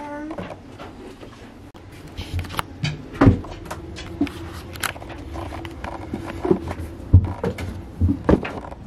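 Irregular knocks, clicks and thumps of a person moving through a sailboat's cabin and out through a hatch onto deck, over a faint steady hum.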